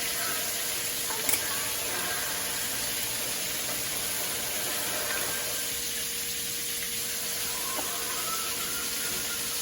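Butter-based honey garlic sauce with ginger sizzling steadily in a pan, with one sharp click about a second in.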